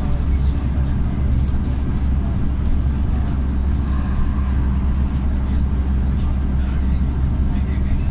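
Scania Omnicity single-deck bus heard from inside the passenger cabin while driving at a steady speed: an even, deep drone of the engine and road noise, with light rattles now and then.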